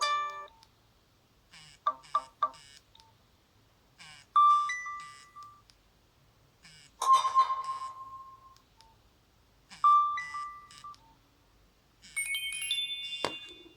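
Nokia 6300 phone playing a series of five short built-in electronic tone jingles, each about a second long, with pauses of a second or two between them. The last one ends in a quick falling sweep.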